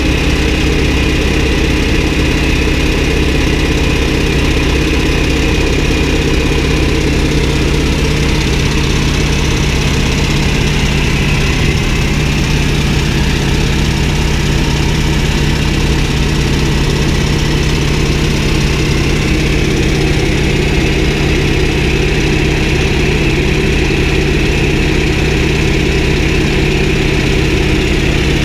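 North American T-28 Trojan's radial engine and propeller running steadily in cruise flight, heard from inside the closed cockpit as an even, unchanging drone.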